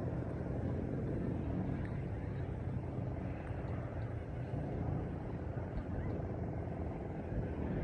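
Steady low rumble of street traffic, vehicle engines running along the road.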